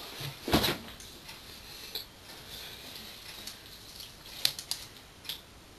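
A few scattered light clicks and a knock as a plant and gravel are handled and lifted out of a small aquarium; the loudest knock comes about half a second in.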